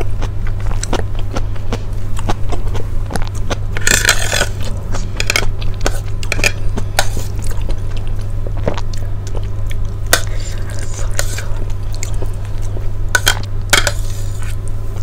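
A person chewing and eating chicken rice porridge close to a clip-on microphone, with a metal spoon clinking and scraping on a plate now and then. A steady low hum runs underneath.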